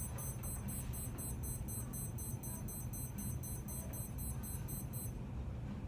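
Steady low hum with a faint, rapid high-pitched electronic pulsing over it, which stops about five seconds in.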